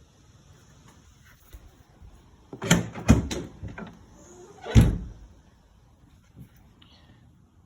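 Pickup tailgate on a 2021 Ram 1500 being handled, with three heavy clunks: two close together about three seconds in and a louder one near five seconds, plus a few lighter knocks.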